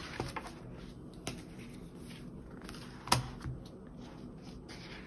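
Paper planners handled on a wooden tabletop: pages and a cover flipping shut with a few light clicks, then one sharp knock about three seconds in, with a softer one just after, as a spiral-bound booklet meets the table.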